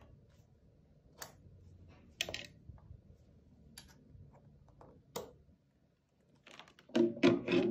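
Scattered sharp clicks and taps of hand handling on a hot-air rework gun's handpiece and its metal nozzle, with a louder run of clicks and knocks near the end.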